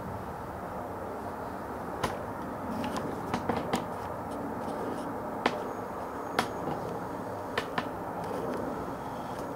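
Steady low background rumble, with about eight sharp clicks and taps scattered through it: a pair near two seconds in, a quick run around three and a half seconds, and a close pair near the end.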